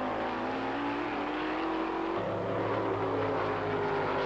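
Competition altered drag cars running at full throttle down the quarter mile, one of them powered by a 390 cubic inch Ford V8: a steady engine note that shifts about two seconds in.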